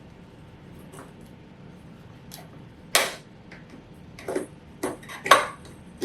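Scattered sharp clicks and light knocks of a 15-watt lamp tube being twisted and worked loose from its sockets in a bug zapper. The loudest click comes about halfway through, and several more follow close together near the end.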